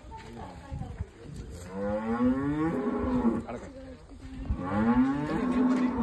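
Holstein Friesian cow mooing: two long moos, the second beginning about halfway through.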